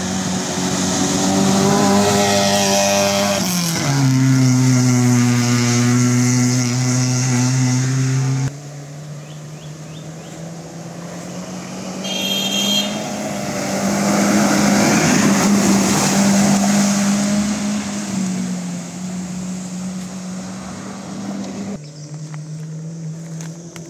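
Modified Maruti Gypsy engines running hard as the vehicles drive through a shallow stream, with water splashing. The engine note drops in pitch about four seconds in. The sound breaks off abruptly twice, switching to another run.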